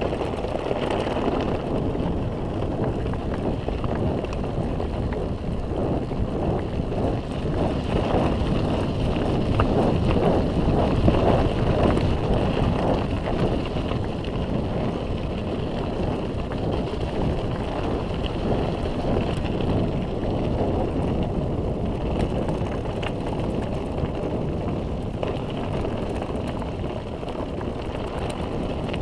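Wind rushing over the microphone with tyre noise and rattling from a mountain bike descending a dirt trail, steady, with small knocks throughout.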